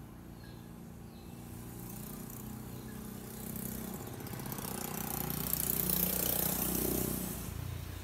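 A motor vehicle passing, swelling to its loudest about six seconds in and then fading, over a steady low hum.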